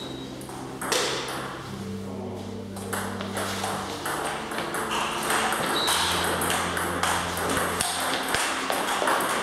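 Table tennis balls clicking off bats and tables in rallies around the hall: a quick, irregular patter of light pocks that grows busier after a few seconds.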